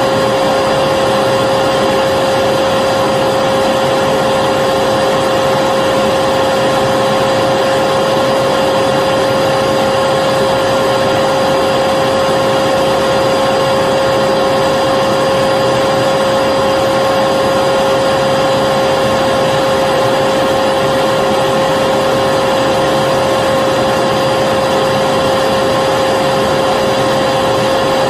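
Vacuum cleaner running continuously: a steady motor whine over an even rush of air, unchanging in pitch and level.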